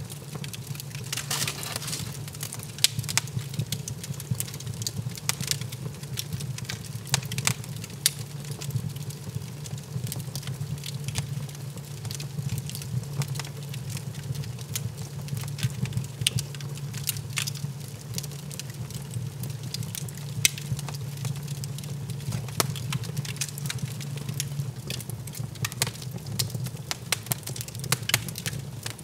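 Wood fire burning in a fireplace, crackling with frequent irregular pops over a steady low rumble.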